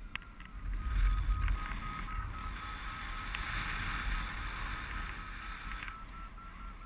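Wind rushing over the microphone of a paraglider in flight, a low rumble. Behind it a variometer beeps quickly and evenly at a steady pitch, the tone that signals the glider is climbing.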